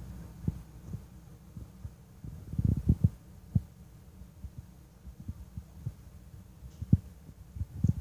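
Wind buffeting the microphone: irregular low thumps and rumble, with a burst of them about two and a half seconds in and single sharper thuds near the end.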